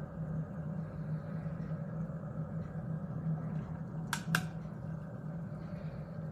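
Steady low hum, with two sharp clicks in quick succession about four seconds in.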